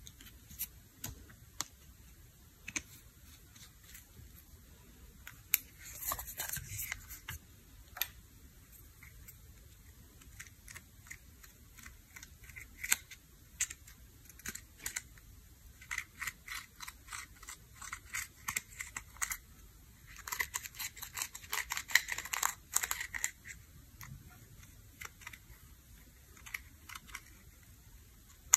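Crisp taps and scratching as a metal stylus crushes and scrapes pressed eyeshadow in a small plastic palette. The taps come irregularly, with denser runs of scraping about six seconds in and for several seconds after the middle.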